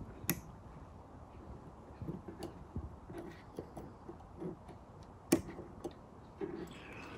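Small clicks and light handling noise of needle-nose pliers and copper wire worked against the metal contact of a Model A Ford horn. There is a sharp click just after the start and another about five seconds in.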